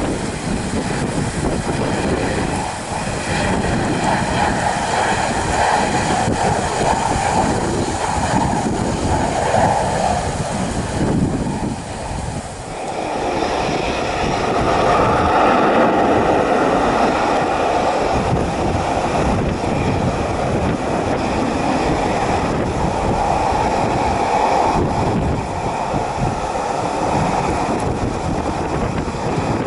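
Steady jet engine noise from a Boeing 737-800's CFM56-7B turbofans, mixed with wind on the microphone. It dips about twelve seconds in and then swells again.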